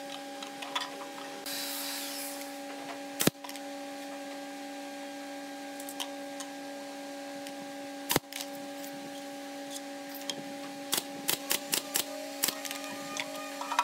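A pneumatic nail gun fires a quick run of about six shots into a pine drawer box near the end. Earlier there are two sharp knocks, about three and about eight seconds in, over a steady mechanical hum.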